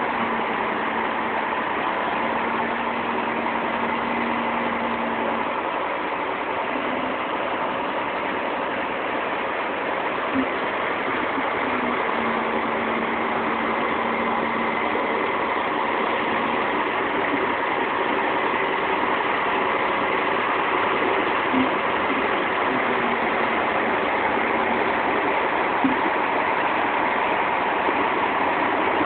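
Concrete truck engine running steadily under a constant wash of mechanical noise, with a few light knocks.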